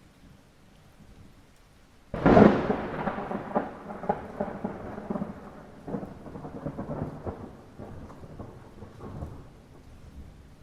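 Thunder in light rain: a sharp crack about two seconds in, then a long rolling rumble that surges again several times as it slowly fades. Steady rain hiss underneath.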